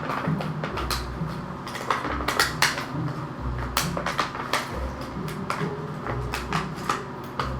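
Irregular clicks and light clatter of small plastic ornaments and their packaging being handled, over a low uneven hum.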